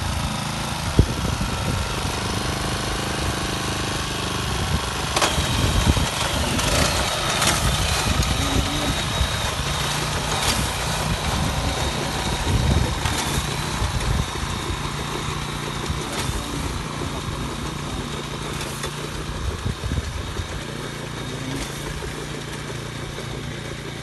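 Small single-cylinder engine of a walk-behind rice binder (reaper-binder) running steadily under load while it cuts and ties ripe rice. Sharp clacks come every two to three seconds as sheaves are tied and thrown out. The sound grows fainter near the end as the machine moves off.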